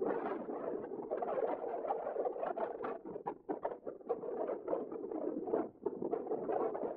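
Strong gusty wind buffeting the camera microphone, a ragged, crackling rush that rises and dips irregularly.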